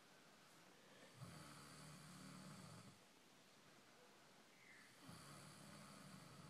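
Sleeper snoring: two long, low snores, one a little over a second in and another about five seconds in, each drawn out for under two seconds.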